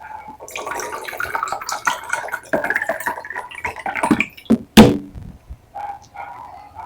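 Water sloshing and splashing in a glass for about four seconds, then a single sharp knock about five seconds in.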